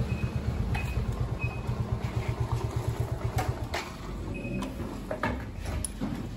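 A motor running with a fast, even low pulse that stops about four seconds in, followed by several sharp clicks and knocks.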